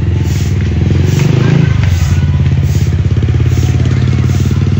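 A motorcycle engine running steadily, a low throbbing hum that grows a little stronger about a second in.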